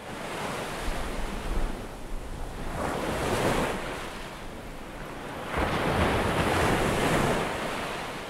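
Waves washing in, the surf noise swelling and fading three times.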